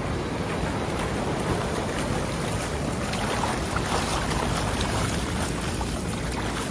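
Steady rushing wind noise on the microphone mixed with surf breaking on the beach.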